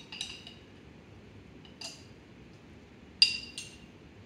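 Metal spoon clinking against a small glass jar of diced jalapeños as they are scooped out. There are a few light, ringing clinks spaced out, and the sharpest comes about three seconds in, followed quickly by another.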